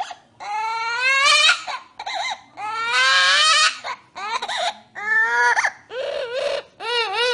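Amazon parrot calling loudly in a string of long wavering cries that rise in pitch, with a harsher screech about three seconds in and a quick run of short calls near the end.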